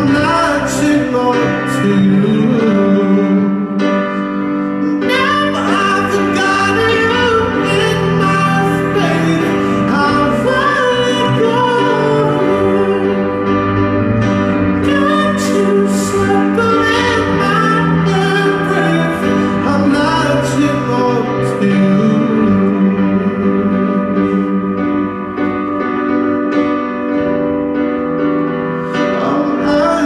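A man singing live into a microphone, accompanied by cello and acoustic guitar.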